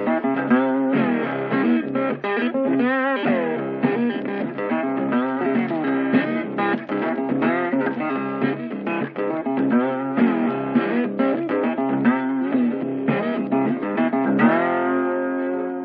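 Background music: a guitar plays a bluesy lead line of plucked notes with string bends and vibrato, settling into a held chord near the end.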